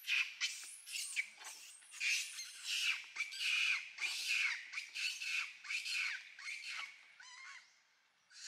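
A rapid series of harsh, high squawking animal calls, about two or three a second, that die away near the end.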